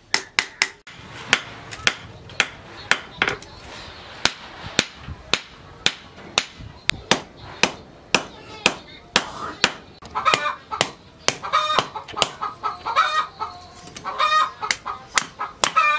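Hand hammer striking a red-hot steel knife blank on a steel anvil, sharp ringing blows about twice a second. From about ten seconds in, chickens cluck between the blows.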